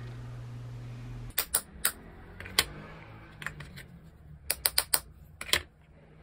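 A steady low hum that cuts off just over a second in, then a dozen or so sharp, light clicks and taps, some in quick runs, as aluminium dome-shaped bath bomb mold halves and a metal spoon are handled and knocked against a plastic tray.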